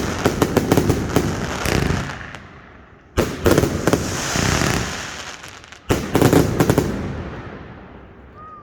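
Fireworks going off: a rapid run of bangs and crackling that fades out, then two more sudden volleys of bangs and crackle about three and six seconds in, each dying away.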